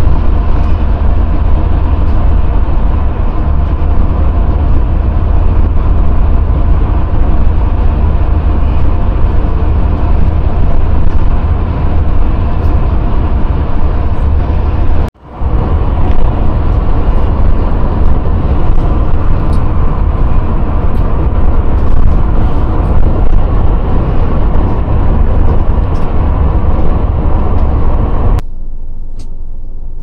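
Steady road and engine rumble heard from inside a car travelling at expressway speed, loud and heavy in the low end. It cuts out briefly about halfway through, and becomes much quieter near the end as slower city traffic.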